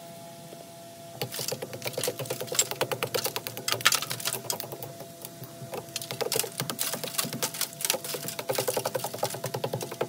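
Rapid mechanical clicking or tapping, many strikes a second, coming in runs that start about a second in and ease off briefly midway. A steady hum runs underneath.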